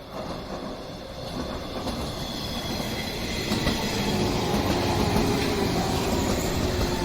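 A train running along the line toward the level crossing, growing steadily louder, with steady tones joining the rail noise from about four seconds in.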